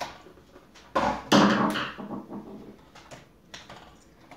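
Plastic front bezel and clear lens of a GM instrument cluster being pried off the housing: a sharp snap about a second in, then a loud plastic creak and scrape as the cover comes free, followed by a few light clicks.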